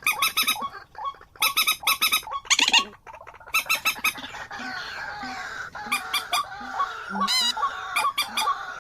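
Bird calls: quick clusters of short, repeated pitched notes, with a softer chattering warble underneath in the second half.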